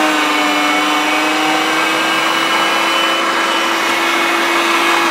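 Anko 300 W electric meat mincer running steadily at full speed, a loud, even motor whine, as it grinds a few more rashers of bacon.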